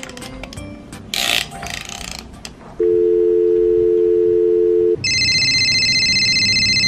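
Clicks of the dial buttons being pressed on a pink toy telephone, then a steady two-tone telephone dial tone for about two seconds, then a high, fast-warbling electronic phone ring.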